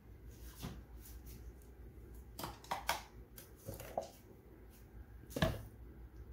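A few knocks and clunks of a Ninja blender's plastic jar being handled, tipped and shifted, the loudest knock about five seconds in.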